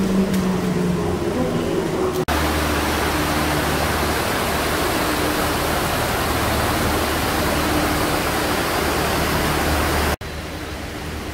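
A loud, even rushing of a mountain stream over rocks, with a steady low hum underneath. It starts suddenly about two seconds in and cuts off sharply near the end.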